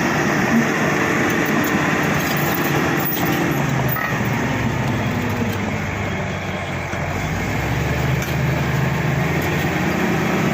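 Bulldozer's diesel engine running under load, its note dropping in the middle and rising again near the end.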